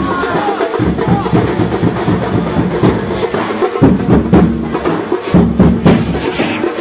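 Music carried by drums and percussion, with dense, rapid strikes.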